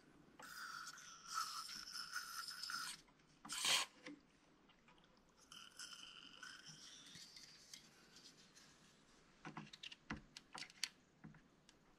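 A thin tool scraping and rubbing at the wire terminals inside an open Carver PM-900 power amplifier chassis. The scratchy scraping comes in two stretches, with one louder, sharper scrape a few seconds in, then a few light clicks near the end.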